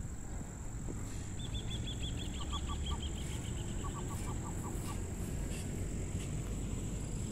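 Birds calling: a quick run of about a dozen short, high, falling notes, overlapped by two short runs of lower clipped notes, over a steady faint high insect whine.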